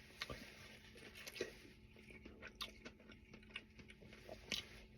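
Close-miked chewing: a person eating with mouth sounds, faint irregular wet clicks and light crunches.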